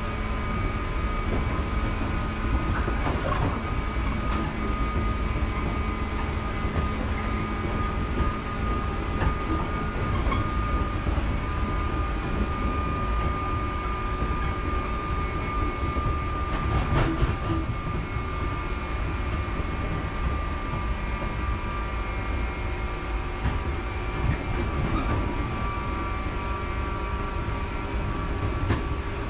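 JR Shikoku 121 series electric train running, heard from inside the car: a continuous low rumble with a steady high tone over it and a few rail-joint clacks.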